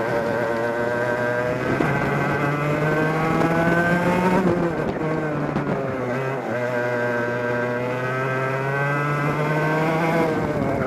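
Two-stroke racing kart engine heard from on board, revs climbing hard, dropping off briefly about four and a half seconds in as the throttle is lifted for a corner, then climbing again and falling away near the end.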